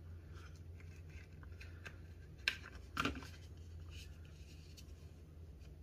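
Faint handling noise from the stripped end of a 2/0 copper battery cable being worked by hand: light rustles and ticks, with two sharper clicks about two and a half and three seconds in, over a steady low hum.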